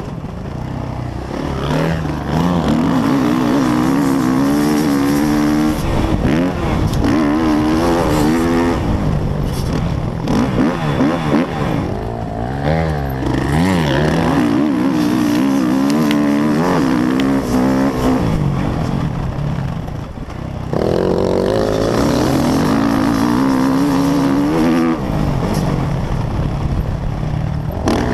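Motocross bike engine heard from on board, revving up and dropping off again and again as the throttle is opened and shut, with brief dips where it falls away.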